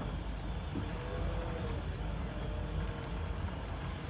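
Forklift engine running steadily as the truck manoeuvres, a low even rumble.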